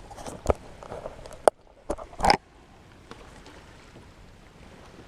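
A few sharp knocks and thumps against a plastic kayak, the loudest about a second and a half in, followed by a faint steady background.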